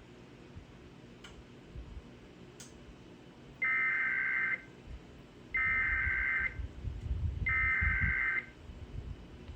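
Emergency Alert System SAME header: three bursts of rapid two-tone data signal, each about a second long and about a second apart, announcing an AMBER Alert activation.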